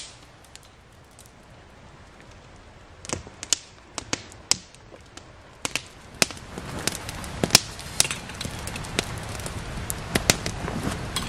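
Small campfire of dry firewood crackling, with irregular sharp pops that grow denser and louder from about halfway in.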